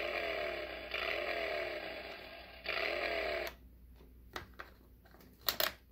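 Fisher-Price Harley-Davidson toy trike playing its electronic motorcycle engine sound effect through a small speaker, a buzzy rev pattern that repeats, for about three and a half seconds before it cuts off. A few sharp plastic clicks follow as the dashboard buttons and knob are worked.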